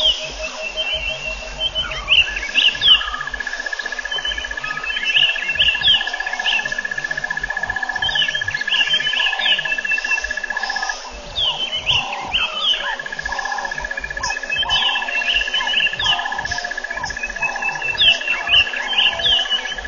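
Bush ambience of wild birds chirping with quick down-sweeping calls over a long, steady high trill. The trill breaks off for a moment about halfway through. Through the middle stretch a lower call repeats about every half second.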